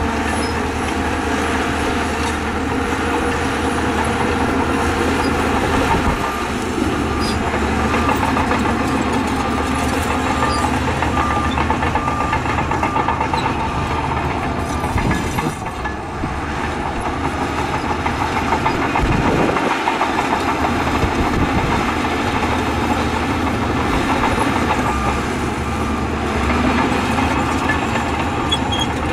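Shantui crawler bulldozer working: its diesel engine runs steadily under load while the steel tracks clatter. The sound dips briefly about halfway through.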